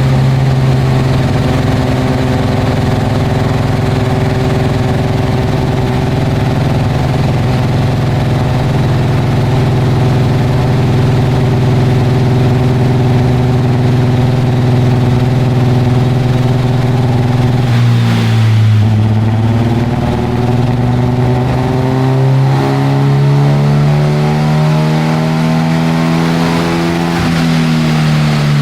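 AE82 Toyota Corolla's four-cylinder engine with 300/294 camshafts running hard on a dyno. It holds a steady speed for most of the time, dips about 18 seconds in, then revs up in a long steady climb before dropping back near the end.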